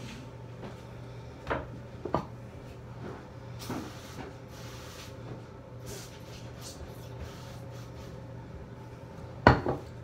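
Scattered knocks and clatters of household cleaning things being handled and set down around a bathroom sink, the loudest double knock near the end, over a steady low hum.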